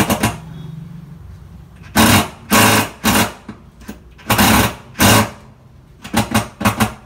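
A power tool run in about a dozen short bursts of a fraction of a second each, stopping and starting, with several quick bursts close together near the end.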